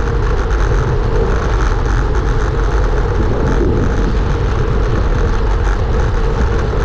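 Steady rush of wind buffeting the microphone of a handlebar-mounted camera on a road bike riding at speed, mixed with tyre and road noise.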